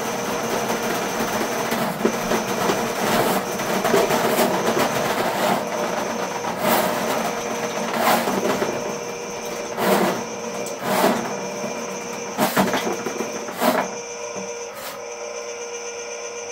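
RIDGID K-50 sectional drain machine running steadily as its spinning cable is fed into a clogged floor drain, with irregular sharp knocks from the cable every second or so. It gets a little quieter near the end.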